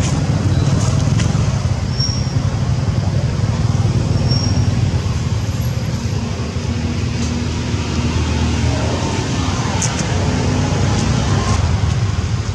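Steady low rumbling background noise, with two faint short high peeps about two and four and a half seconds in.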